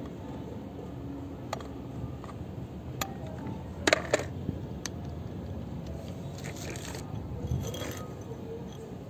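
Light clicks and clinks of a square steel steering rod being handled against a yellow plastic kid's-car steering wheel and hub. The loudest is a double click about four seconds in, and a couple of soft scrapes follow later.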